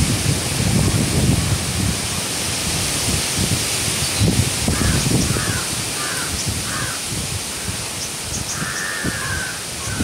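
Wind blowing through trees and palm fronds, with rustling leaves and gusts buffeting the microphone. About halfway through, a bird calls four times in quick succession, then once more with a longer call near the end.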